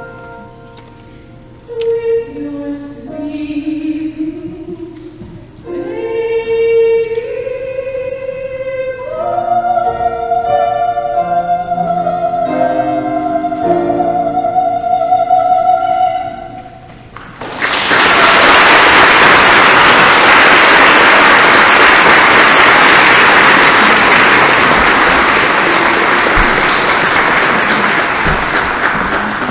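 Singing of a carol ends on a long held final chord, then the congregation applauds steadily for about twelve seconds.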